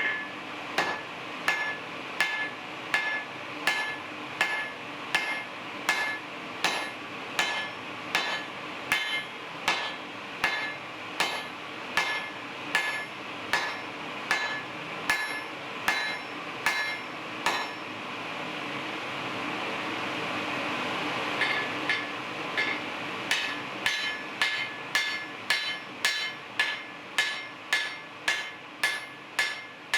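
Blacksmith's hammer striking hot steel on an anvil in a steady rhythm, about two blows a second, each with a short metallic ring. The blows pause for a few seconds past the middle, then resume a little faster.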